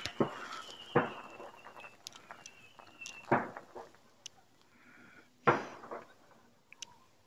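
Fireworks and firecrackers going off: four sharp bangs, each trailing away, with smaller pops between them and a thin high whistle that falls slightly and stops about three seconds in.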